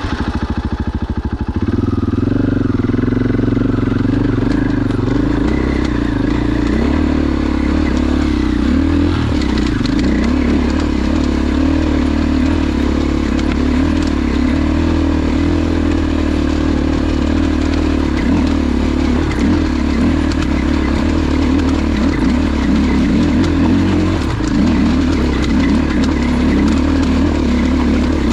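Dirt bike engine running steady and hard under load, ridden up a rocky hill climb.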